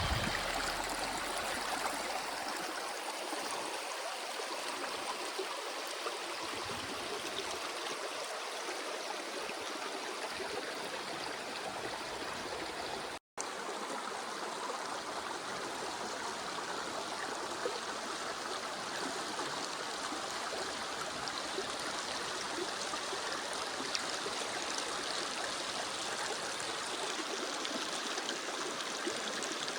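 Running water flowing steadily, like a stream, with a brief cut to silence about thirteen seconds in.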